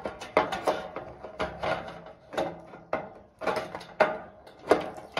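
Hand metal snips cutting along painted sheet-metal roofing trim: a run of sharp crunching snips, roughly two a second.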